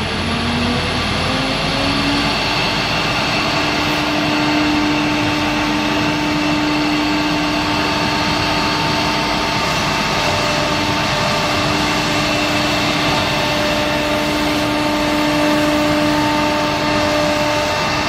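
Three-head CNC wood router cutting and engraving a wooden board: the spindles run with a steady whine over the hiss of the bits cutting wood. The whine rises in pitch over the first couple of seconds, then holds steady, with a second tone joining about halfway through.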